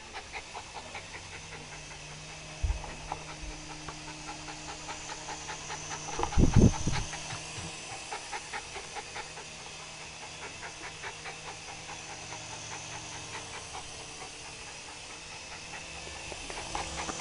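West Highland terrier panting fast and steadily, about four or five breaths a second, over a faint steady hum. There is a brief loud low thump about six and a half seconds in.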